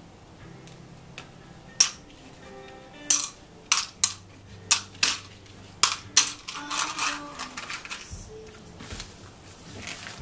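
Small parts clicking and clattering as they are set into a plastic tub of hardware, about eight sharp clicks, then plastic packaging bags crinkling for the last few seconds.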